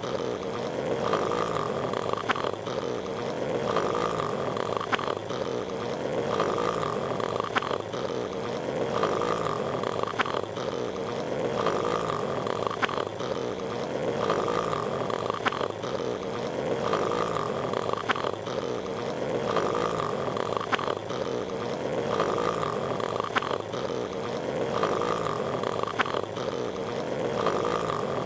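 Patrick Star's cartoon snoring, a looped snore repeating about every two seconds over a steady hiss, with faint clicks every couple of seconds.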